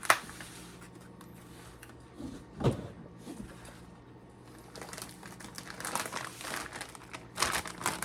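Plastic potato-chip bag being handled and crinkled, starting about five seconds in and going on busily. It comes after a sharp click at the start and a short low sound that falls in pitch a little before the three-second mark.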